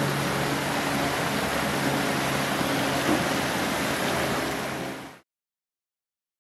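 Creek water rushing steadily over rocks, fading out and dropping to silence about five seconds in.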